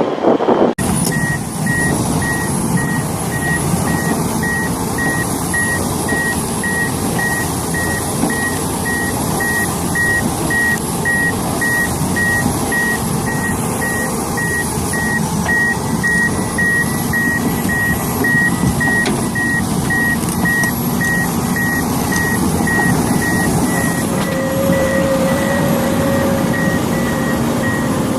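A heavy machine's reversing alarm beeping steadily at about two beeps a second over its diesel engine running. The sound starts abruptly about a second in. A thin high whine runs throughout, and a lower steady tone joins near the end.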